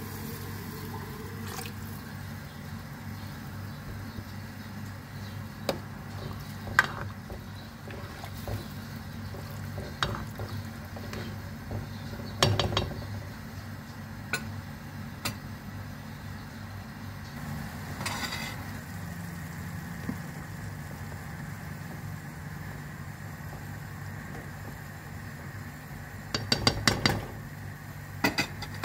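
Scattered clinks and knocks of a cooking spoon against a metal soup pot, with a quick run of knocks near the end, over a steady low hum.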